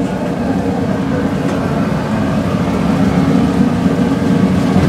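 Steady low roar of a commercial gas burner running at high flame under a pan of simmering gravy.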